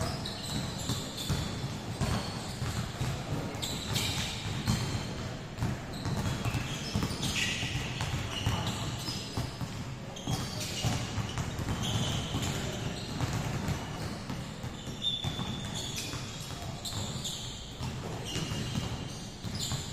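Many basketballs dribbled at once on an indoor court, a dense, continuous patter of overlapping bounces echoing in a large gym, with short high squeaks scattered through it.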